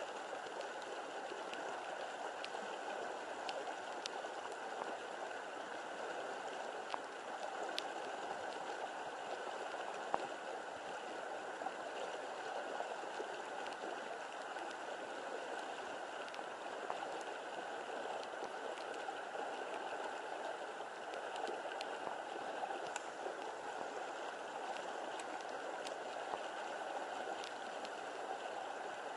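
Steady rush of flowing water, with a few faint ticks.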